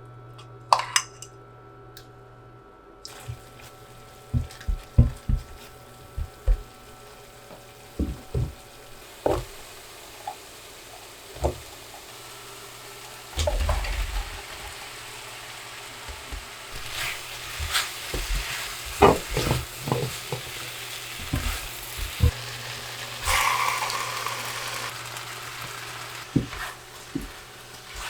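Kitchen cooking sounds: utensils knocking and clinking against pots and dishes, with stretches of sizzling.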